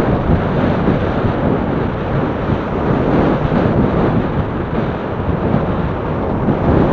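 Wind rushing over the microphone of a camera mounted on a moving recumbent bicycle: a loud, steady noise with no clear single events.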